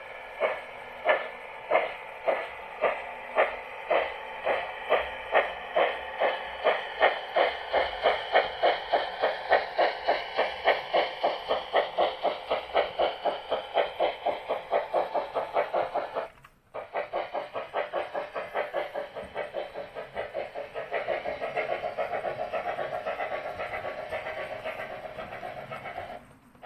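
Steam-exhaust chuffing from the sound decoder of a Märklin HO-scale Union Pacific 'Big Boy' model locomotive, starting slowly and speeding up steadily into a rapid, even beat as the locomotive accelerates. The sound cuts out briefly about two-thirds of the way through, then the fast chuffing resumes.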